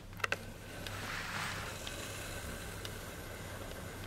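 Low background noise: a steady low hum and hiss, with two small clicks about a quarter of a second in.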